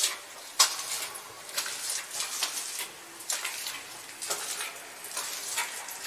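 Footsteps crunching and scraping over small rocks on a cave floor, with the cave's reverberation. The steps come irregularly, with a sharp, louder crunch about half a second in.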